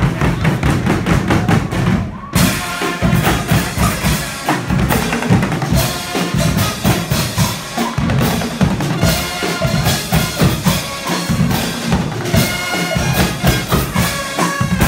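Guggenmusik band playing live: trumpets, trombones and sousaphones over a driving drum-kit beat with bass drum. There is a short break about two seconds in before the full band carries on loud.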